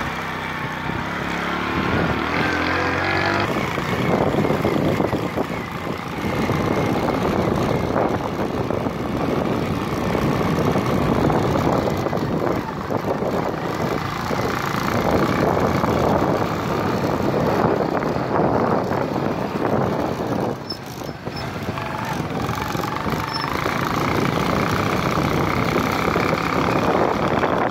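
A vehicle driving over a rough dirt track: its engine runs under a dense, uneven rattle and rumble from the bumpy ground, easing briefly about three-quarters of the way through.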